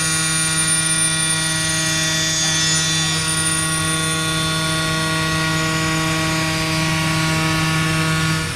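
WFL M60 CNC mill-turn machine milling a crankshaft pin: a steady machining whine of many held tones over a low hum.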